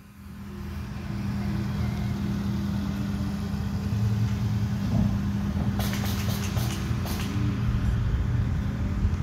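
An engine running steadily with a low hum that swells up over the first second. About six to seven seconds in, a brief run of sharp clicks and rattles sounds over it.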